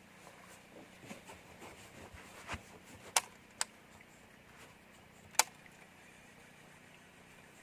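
A few sharp clicks and light knocks over a faint steady hum. The loudest clicks come about three seconds in, again half a second later, and once more near five and a half seconds.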